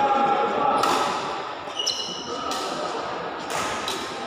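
Badminton rally: a few sharp racket hits on a shuttlecock, one about a second in and two close together near the end, ringing in a large hall over a steady hum of spectators' voices. A short high shoe squeak comes just under two seconds in.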